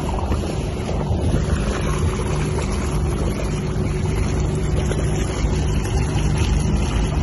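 Toyota Land Cruiser 75's engine running steadily as the vehicle wades through deep flood water, with a constant wash of water around it.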